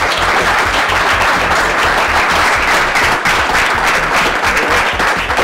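A roomful of people applauding, dense clapping that goes on without a break.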